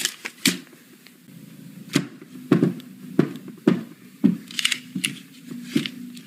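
Paper banknotes being handled and crinkled: a series of short, sharp crackles about every half second, over a faint steady hum.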